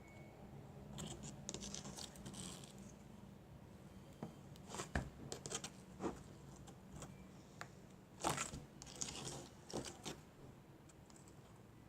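Faint scattered clicks and scratchy rustles of glitter being shaken out of its container over putty, with small handling knocks. The loudest bursts come about five seconds in and again around eight to ten seconds in.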